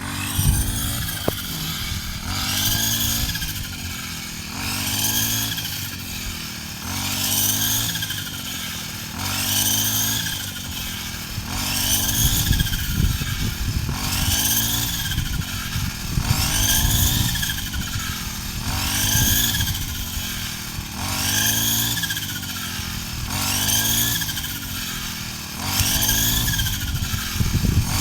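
A small engine running, its pitch and level rising and falling in a regular cycle about every two seconds, as if it is repeatedly loaded and freed.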